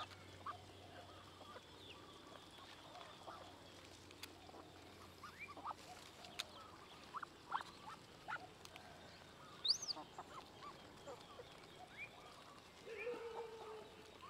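Faint scattered calls from poultry and birds: short chirps and peeps throughout, a high bright chirp about ten seconds in, and a longer, lower call near the end.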